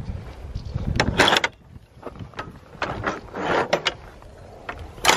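Metal latch of a wooden field gate clicking and clanking as the gate is unlatched and swung open: a string of sharp knocks, the loudest near the end.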